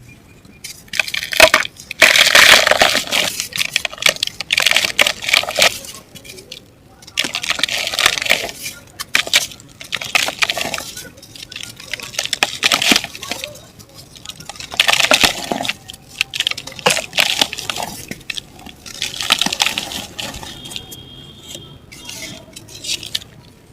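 Dry chunks of mud and black dirt being crumbled, in repeated crackly, gritty bursts of a second or two each with short pauses between.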